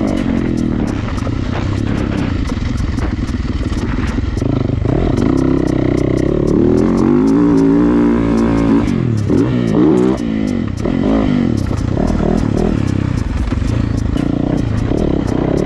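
Yamaha motocross bike's engine heard onboard while racing a dirt track, the revs rising and falling with throttle and gear changes. The revs climb to their loudest about eight seconds in and drop sharply near ten seconds as the throttle is shut, with scattered clicks and rattles throughout.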